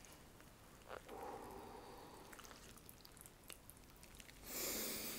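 A gloved hand stirs and lifts cold noodles out of watery watermelon soup in a hollowed watermelon shell, with faint dripping and squishing of the liquid. Near the end comes a louder breath in, about a second long, as the noodles are sniffed.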